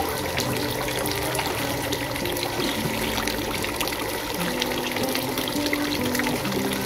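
A stream of water pouring into a full basin in a steel sink, steady splashing, with soft background music playing a melody.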